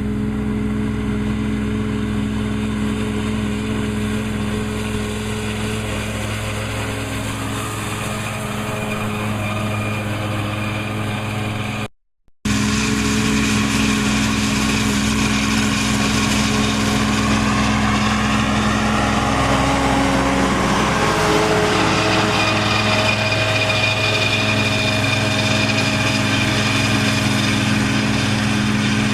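Massey Ferguson 2600-series tractor's diesel engine running steadily while mowing hay with a disc mower. A brief gap to silence comes about twelve seconds in, and later the engine's pitch dips and rises again before settling.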